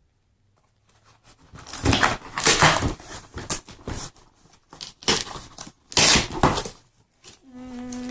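Wrapping paper being torn and crinkled in several quick bursts as a present is unwrapped. Near the end, a short steady hum-like vocal sound.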